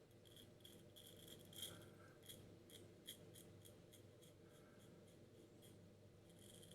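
C.V. Heljestrand safety razor making short, faint scraping strokes across lathered stubble, about three a second.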